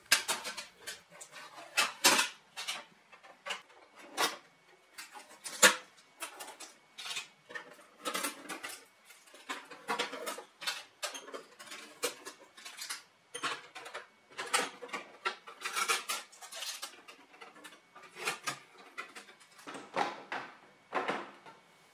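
Packing tape and protective film being peeled and pulled off a Canon MF113w laser printer's plastic casing: irregular scratchy rips and rustles, with plastic clicks and knocks as its lid and paper tray are opened. One sharp knock stands out about six seconds in.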